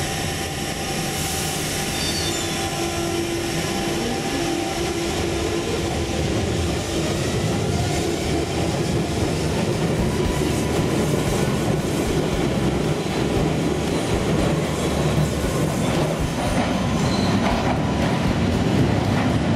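London Underground 1992 Stock tube train running out of a station platform, a steady loud rumble of the train on the rails with a tone held over the first several seconds.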